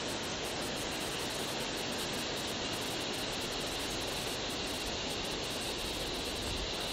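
Steady, even rushing noise with no distinct events, a constant outdoor ambience.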